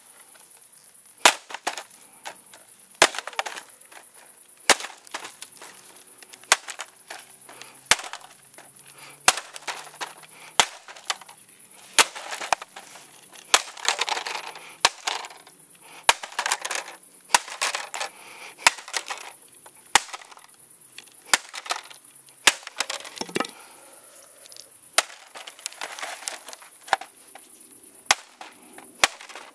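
A wooden stick hitting a wrecked laptop over and over, about one blow every second or two, each a sharp crack with crunching and splintering of the cracked screen and plastic case after it.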